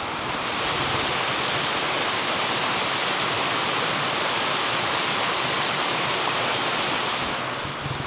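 Waterfall and stream: a steady rush of water falling into a pool and running over rocks. It grows louder about half a second in and eases off near the end.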